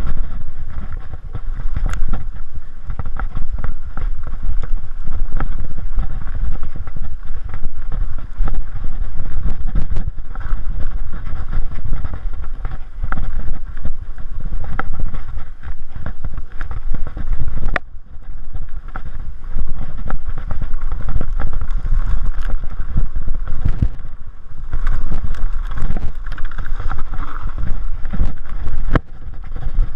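Mountain bike ridden fast down a forest dirt trail, heard from a camera mounted on the bike: steady wind buffeting on the microphone and tyre rumble, with the bike rattling and clattering in constant small clicks and knocks over the bumps, and one sharp knock about eighteen seconds in.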